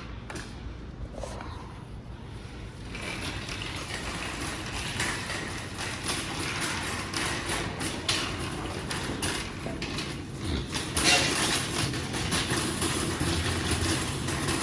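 Grocery store background noise: a steady low rumble with many small clicks and clatters, getting louder about three seconds in.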